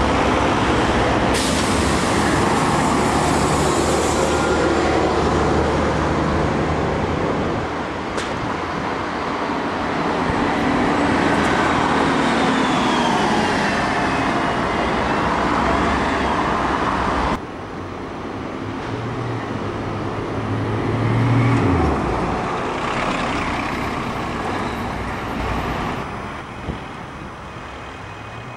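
Diesel buses running in road traffic, with a hiss of air brakes about a second in. Later, a bus engine revs up and then drops away.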